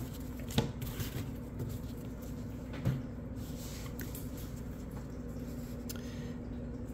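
Stack of baseball cards being handled and thumbed through, with light rustling and a few soft taps, the clearest about half a second in and about three seconds in, over a faint steady hum.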